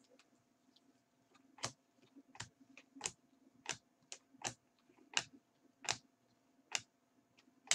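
Stack of chrome baseball cards being flipped through by gloved hands: about a dozen sharp clicks as the cards snap past one another, starting about a second and a half in and coming roughly one or two a second.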